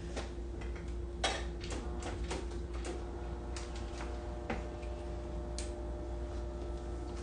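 Irregular light clicks and taps of hard objects being handled and set down, the sharpest about a second in and again near the middle, over a steady low electrical hum.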